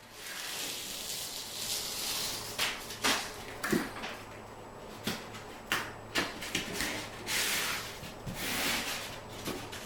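Backing liner being peeled off a peel-and-stick foam edge strip, a rasping, rustling tear, with light taps and rubbing as the strip is handled and pressed down to the floor.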